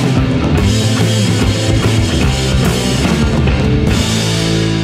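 Background rock music with a heavy drum beat; near the end the drums stop and a held chord rings on.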